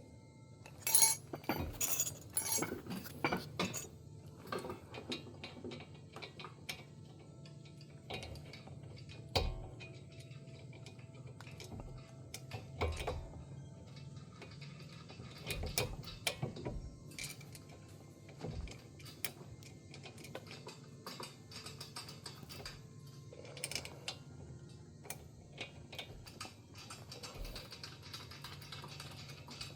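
Irregular metallic clinks and clicks of hand tools and brake parts being handled during brake reassembly, loudest in the first few seconds.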